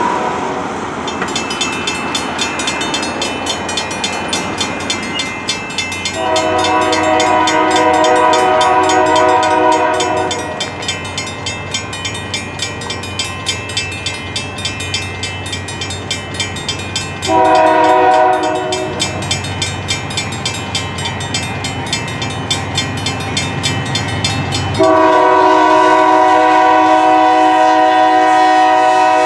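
Railroad crossing bells ringing rapidly while an approaching Union Pacific locomotive sounds its multi-tone air horn for the grade crossing: a long blast, a short blast, and a final long blast that is still held at the end, the close of the standard crossing signal.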